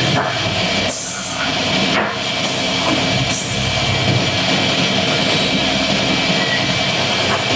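Woodcutting machine running with a steady hum, with short hissing bursts of cutting about one, two and a half, and three and a half seconds in.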